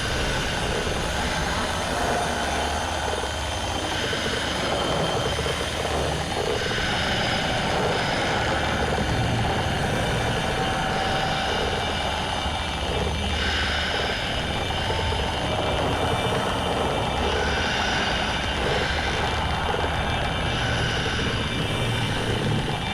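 A steady, dense noise recording: a low rumble under hiss, with faint wavering tones coming and going. It is the creepypasta's 'Rec06.mp3' file, presented as a recording made aboard a bus.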